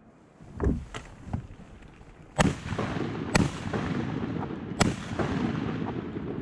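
Three shotgun shots about a second apart, coming after a few lighter knocks, fired from a kayak at ducks on the river. A steady rushing noise runs under the shots from the first one on.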